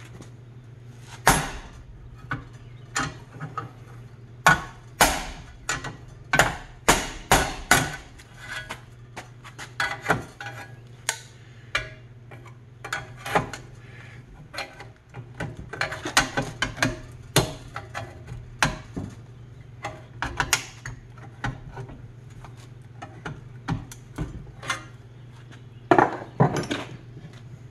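Hammer striking a screwdriver used as a punch against the steel bushing shell and staked lip of a truck lower control arm: dozens of sharp metallic taps in irregular bursts. This is tapping in the factory stakes and around the edge of the shell to work it loose from the arm.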